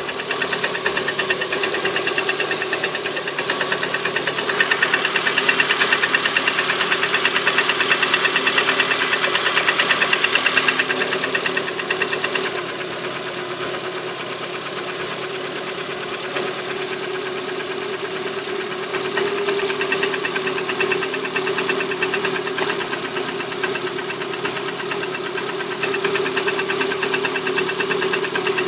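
Lada Priora's VAZ-21126 1.6-litre 16-valve engine idling cold with a fast, even knocking: piston knock, from a piston group later judged due for replacement. The sound gets louder about four seconds in, drops back about twelve seconds in and rises again near nineteen seconds.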